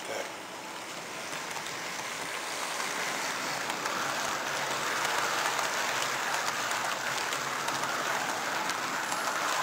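Model train running along the layout's track, a steady whirring rattle of wheels on rail that grows gradually louder as the container wagons pass close by.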